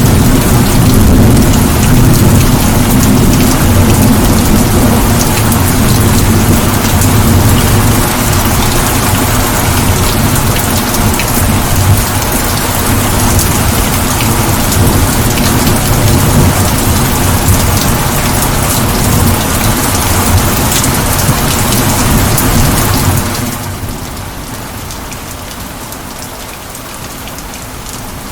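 Heavy rain pouring steadily, with a deep thunder rumble under it through the first half. About three-quarters of the way through, the sound suddenly drops to a much quieter rain.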